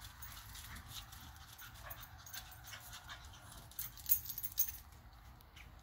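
A Shih Tzu puppy and an older dog playing on a concrete patio: quick clicks and scuffles of paws and claws, loudest in a cluster of sharp clicks about four seconds in.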